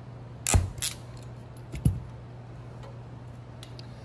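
Ratcheting wire crimper clicking as it crimps a connector onto a wire lead: two sharp clicks about half a second in, a louder snap near two seconds, then a few small ticks. A steady low hum runs underneath.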